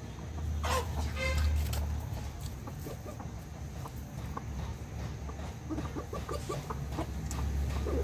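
Chickens clucking as they feed, with one loud, drawn-out squawk about a second in and short scattered clucks later, over a steady low rumble.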